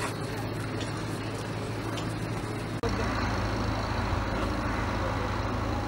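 Steady outdoor background rumble and hiss with a low hum, which shifts abruptly about three seconds in.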